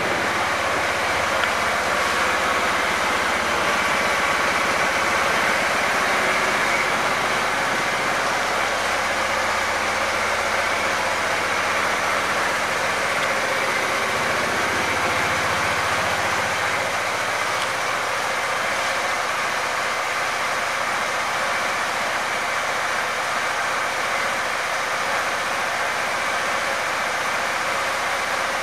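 Kymco People GT 300i scooter's single-cylinder four-stroke engine idling steadily.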